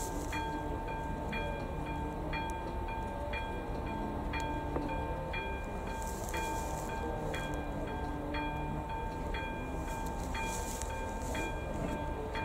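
AŽD ZV02 electronic warning bell of a Czech level crossing, striking a steady ding about twice a second while the crossing is closed for an approaching train. A steady high-pitched tone runs beneath it.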